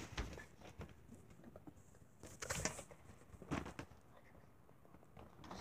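Handling noise from a phone held close to the microphone: soft rustles and light knocks, with a couple of louder scuffs in the middle.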